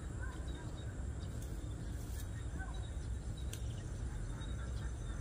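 Outdoor pond-side ambience: a steady low rumble with faint, scattered bird chirps and a few faint clicks.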